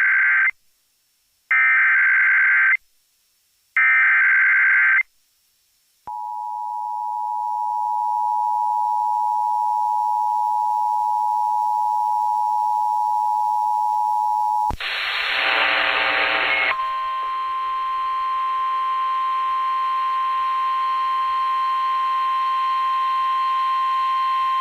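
Emergency Alert System tones received over AM radio. First the end of one and then two more short, harsh screeching bursts of SAME digital header data, about two seconds apart. After a brief gap comes the steady two-tone EAS attention signal for about nine seconds, then a short noisy crackle and a second, slightly higher steady alert tone with a buzzy hum under it, which cuts off about a second before the end.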